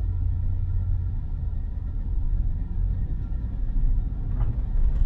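Low, steady rumble of road and cabin noise inside a Tesla Model Y creeping in slow traffic, with a faint steady hum above it.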